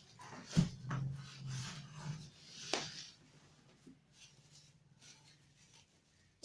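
Handling noises while packing a parcel: rubbing and scraping with a few light knocks, busiest in the first three seconds, then faint.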